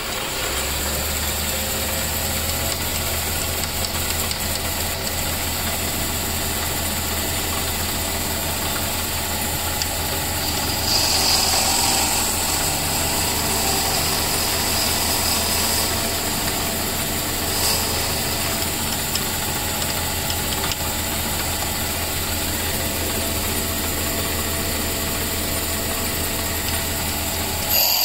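Small metal lathe spinning up and running steadily with a low motor hum, a pool cue section turning in its four-jaw chuck. From about 11 to 16 seconds in, a center drill in the tailstock cuts into the end of the cue, adding a brighter cutting noise over the hum.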